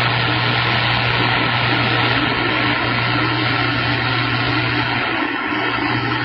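CB radio receiver static: a steady, loud hiss with a constant low hum underneath, heard on the open channel between transmissions.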